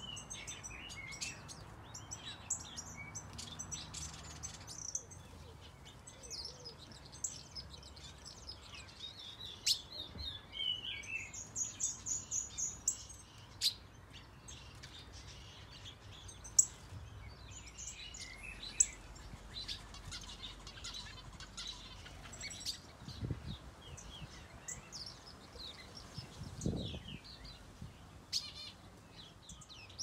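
Many small aviary birds, finches and softbills, chirping and calling, with short high notes overlapping throughout. A quick run of evenly repeated notes comes a little before halfway.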